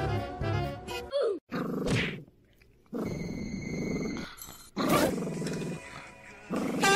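A dog growling in rough, low stretches broken by short pauses.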